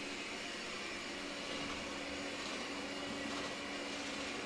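Steady machine noise: an even whoosh with a constant low hum running unchanged throughout.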